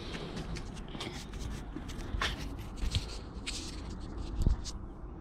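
Handling noise from fingers rubbing and tapping on the camera close to its microphone: scattered scrapes and clicks over a low, steady background rumble.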